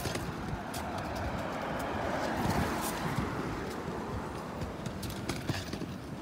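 A car driving past, its noise swelling to a peak about two and a half seconds in and then fading away.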